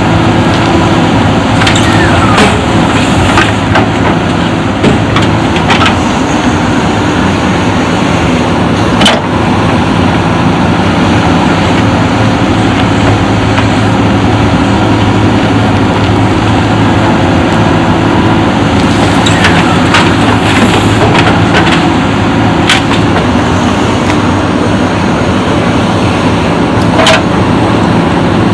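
JCB backhoe loader's diesel engine running steadily at work, with scattered sharp clanks and knocks, a cluster of them a few seconds in and again past the middle.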